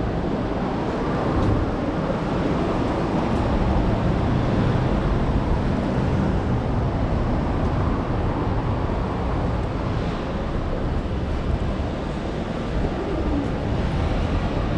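City street ambience: a steady wash of traffic noise.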